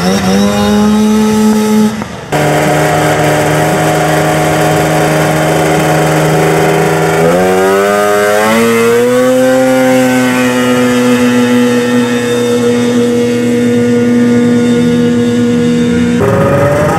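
Snowmobile engines running at full throttle down a dirt drag strip, holding a near-steady high pitch as the clutch keeps the revs up. The sound cuts abruptly to another run about two seconds in, and the pitch climbs in steps around seven to nine seconds in before holding steady again.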